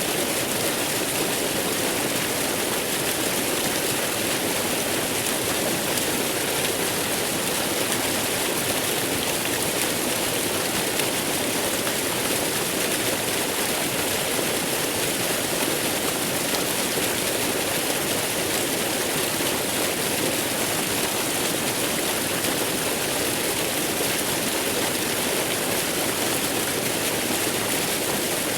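Waterfall: a steady, unbroken rush of falling water that stays the same throughout.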